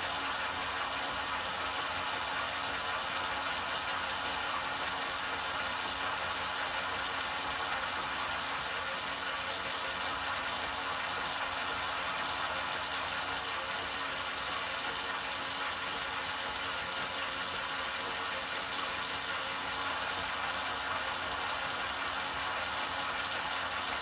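Drive motor in the chassis of an enMotion automatic paper towel dispenser running continuously, a steady hum that holds the same pitch and level.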